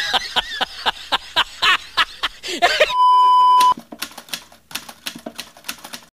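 Typewriter sound effect: quick keystroke clacks, about five a second, then a loud steady beep lasting under a second about three seconds in, then fainter, sparser keystrokes.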